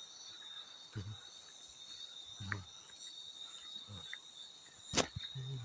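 Field crickets chirping steadily in a high, even trill, with a few short low sounds and one sharp snap about five seconds in.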